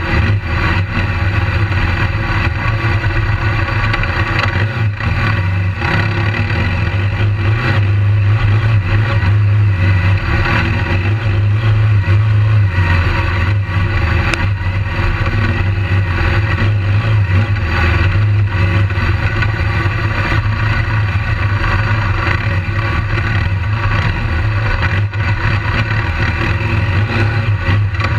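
BMW GS adventure motorcycle's engine running steadily under way on a dirt track, heard from the bike itself with road and wind noise over it; its low drone swells a little in the middle.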